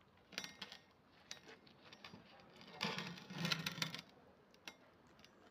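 Scattered light clicks and clinks of metal parts being handled, with a denser rattling cluster about three seconds in.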